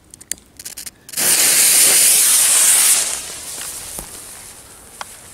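A lit firecracker fuse crackling and spitting, then a loud, even hiss for about two seconds that fades away. A small sharp knock comes about four seconds in.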